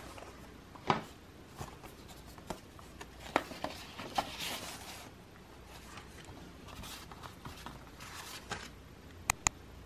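Handling of art prints and their packaging: soft rustling with scattered light clicks and taps, and two sharp clicks close together near the end.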